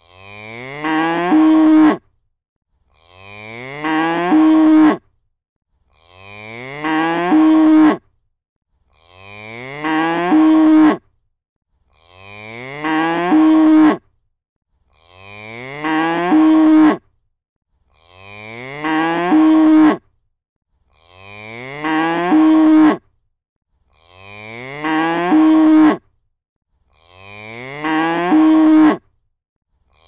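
A cow mooing: the same long moo repeated ten times, one every three seconds with silence between. Each moo rises in pitch and swells louder before cutting off abruptly.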